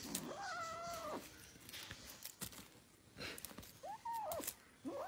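A black kitten meowing three times in drawn-out calls, the last starting near the end, with light crinkling clicks from the silver wrapper toy it is pawing and biting.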